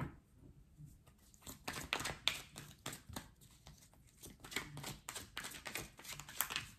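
Tarot cards being handled and shuffled: a run of quick soft flicks and taps in two clusters.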